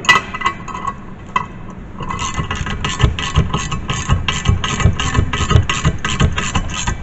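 Socket ratchet wrench clicking as nuts on a steel plow-mount plate are tightened: a few scattered metal clicks and clinks at first, then from about two seconds in a steady run of about five clicks a second.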